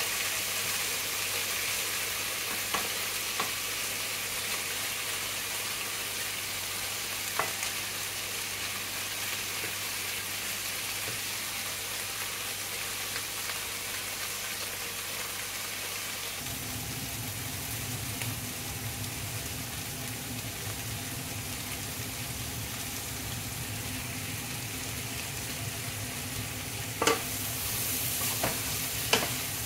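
Sausages, cabbage and corn sizzling as they are stir-fried in a frying pan, with a few sharp knocks against the pan, the loudest near the end. A low hum joins about halfway through.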